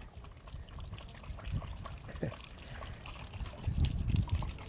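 Water trickling from the spigot of a barrel handwashing station into a bucket below as hands are rinsed under the stream. A low rumble swells briefly near the end.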